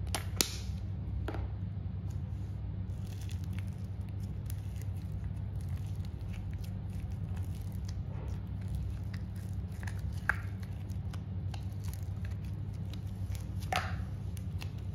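Orange slime being worked out of a clear plastic tub and squeezed by hand: scattered soft squishes and crackles, with a few sharp clicks, the loudest about half a second in. A steady low hum runs underneath.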